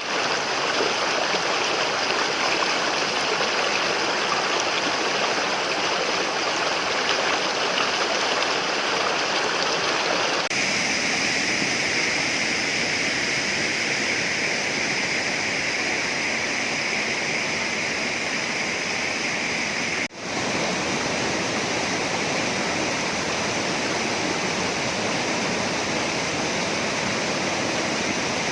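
Rushing water of a waterfall and stream, a steady loud wash that changes character abruptly about ten seconds in and dips for an instant about twenty seconds in.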